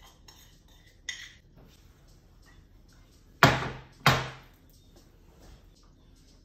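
Crockery and cutlery clinking: a light knock about a second in, then two sharp, ringing clinks about half a second apart a little past the middle, as spoons and a ceramic bowl meet a plate and a metal tray.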